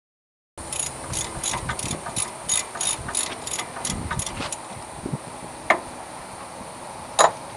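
Socket ratchet clicking in quick strokes, about three a second, while undoing the 5/8 in. bolts that hold the brake caliper on, starting about half a second in; then two sharp single metal clinks near the end.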